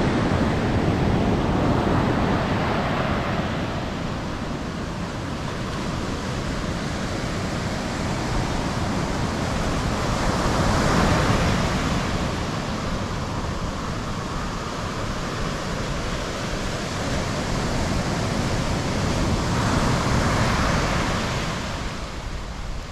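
Ocean surf breaking and washing up the beach, swelling in level about every nine seconds, with wind rumbling on the microphone.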